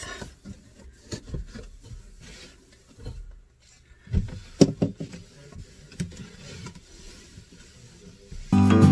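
Microfiber cloth wiping a cupboard shelf: soft rubbing with scattered light knocks, a couple of sharper knocks about four and a half seconds in. Acoustic guitar music starts near the end.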